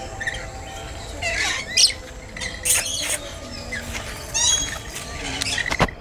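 Rainbow lorikeets calling: a string of short, shrill screeches and chattering notes, one every second or so.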